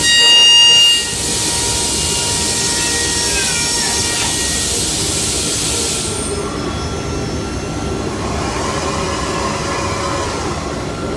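Steady, loud rush of compressed air and abrasive from shotblasting, with a loud high whistle in the first second. About six seconds in the hiss loses its top end and sounds duller.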